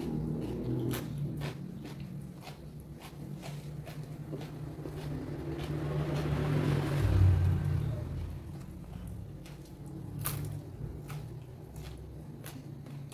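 Close-miked chewing and crunching of raw vegetables, with irregular sharp crunches and a louder stretch around the middle, over a steady low hum.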